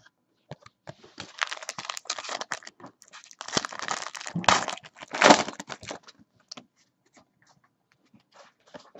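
A foil Panini basketball-card pack being torn open and crinkled in the hands: a dense crackling rustle for about five seconds, loudest in two sharp crinkles near the middle, then a few light clicks as the cards are handled.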